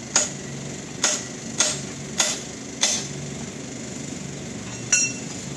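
Hammer blows on metal: five sharp strikes at an even pace, a little more than half a second apart, then a pause and a single clink with a short metallic ring near the end.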